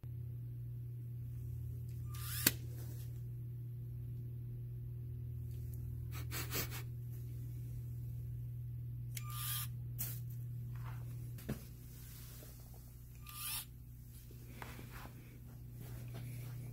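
LEGO Spike Prime motor whirring briefly about five times as the robot arm's claw grips and releases, over a steady low hum, with a sharp click about two thirds of the way through.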